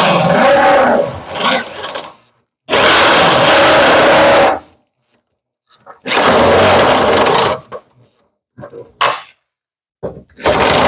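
Electric hand drill boring through the steel floor of a pickup truck bed, run in bursts. It stops about a second in, runs twice more for about two seconds each, gives a few short blips and starts again near the end.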